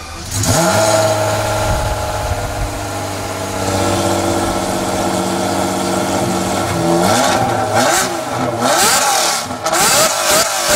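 Lamborghini Diablo's V12 through an aftermarket exhaust, flaring up just after the start and settling into a steady idle, then blipped several times, rising and falling in pitch, from about seven seconds in to the end.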